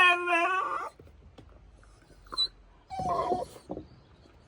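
Dog whining: a wavering high whine in the first second, then a shorter falling whine about three seconds in. The dog is unhappy that the game of fetch has ended.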